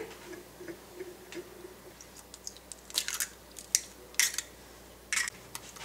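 Raw eggs being cracked open into a bowl: a handful of sharp taps and shell cracks, the loudest ones in the second half.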